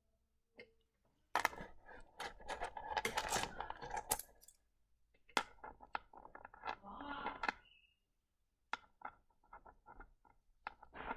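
Small rough opal stones clicking and scraping against one another and a plastic tub as they are handled, in irregular clusters of sharp clicks.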